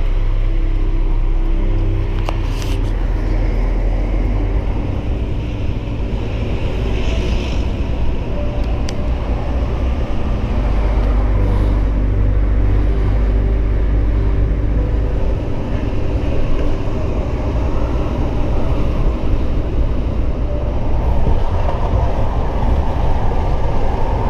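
DAF XF95 lorry's six-cylinder diesel running steadily under way, with road noise, heard from inside the cab.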